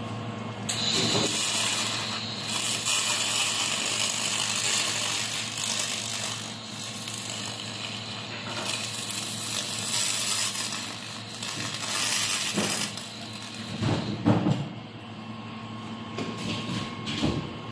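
Laser cleaning head working on metal: a loud, uneven hissing crackle that starts about a second in and stops a few seconds before the end, over a steady low machine hum. A few knocks follow near the end.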